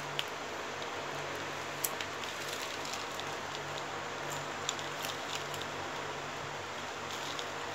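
Plastic basket-weaving wire handled and knotted by hand: light scattered clicks and rustles of the strands against one another, over a steady hiss and low hum.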